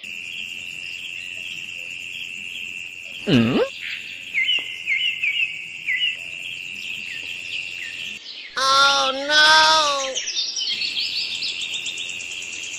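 Steady insect trill with bird chirps, a quick falling whistle a few seconds in, then a goat bleating twice, two short wavering calls about nine seconds in.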